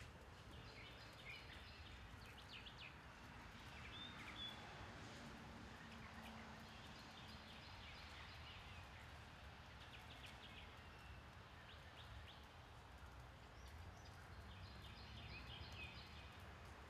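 Faint outdoor ambience: birds chirping on and off in short bursts over a low, steady background rumble.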